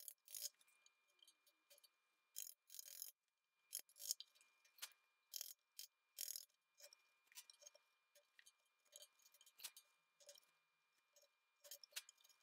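A bench chisel paring the corner of a stopped rabbet in white oak plywood by hand: faint, irregular clicks and short scrapes as the edge shears off small chips, with a few longer scraping cuts, to square up the corner left rounded by the router.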